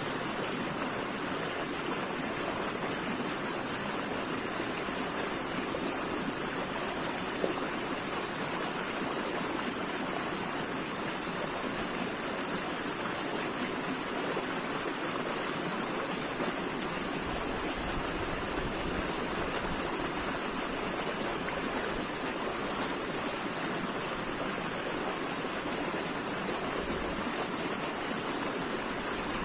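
Running water flowing steadily, an even unbroken rush with a bright hiss on top.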